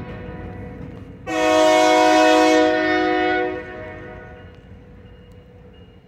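Air horn of a GP38 diesel locomotive: the fading end of one blast, then a single long blast of about two seconds starting about a second in, several chime notes sounding together. A low diesel rumble runs underneath as the blast dies away.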